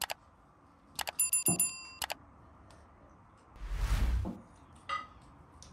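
Tableware clinking at a meal: a few sharp clicks about a second in, with a short glassy ring, then a soft rushing noise about four seconds in.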